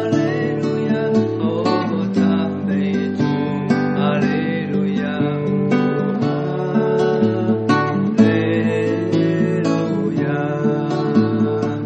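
Acoustic guitar strummed, playing the chords of a Christian worship song.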